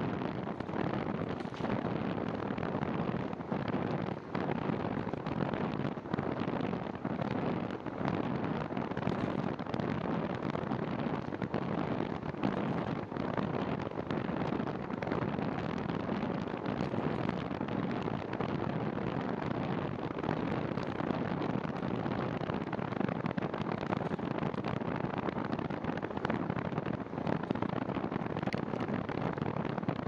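Steady wind rush buffeting a handlebar-mounted camera's microphone on a moving bicycle, with no pauses.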